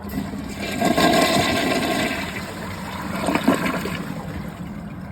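2023 Mansfield ProFit toilet flushing with the tank filled to the normal water line: water rushes into the bowl about a second in, loudest at first, with a second surge later, then gradually fades.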